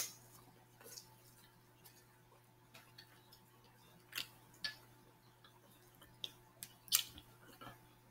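Close-miked eating sounds of corn on the cob: soft, scattered clicks and smacks of biting and chewing, with a sharper click right at the start and another about a second before the end.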